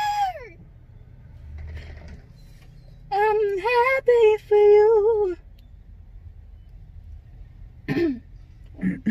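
A woman's singing voice: a long high note ends with a falling slide, then about three seconds in she sings a short wordless phrase of a few held notes. Two short vocal sounds come near the end.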